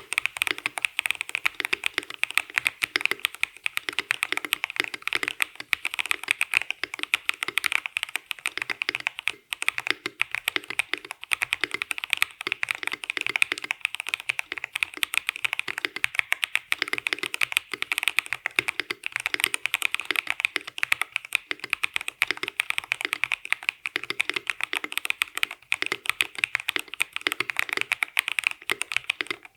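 Continuous rapid typing on an Akko YU01 resin-cased custom mechanical keyboard, a quick unbroken stream of keystroke clicks.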